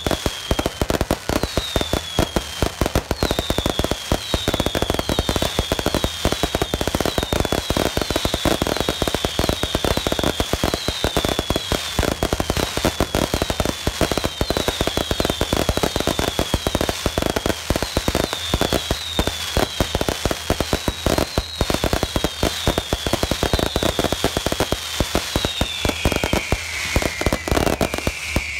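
Professional fireworks display in full barrage: a dense, rapid string of bangs and crackles. Short falling whistles repeat over it about once or twice a second, and a lower, longer falling whistle comes near the end.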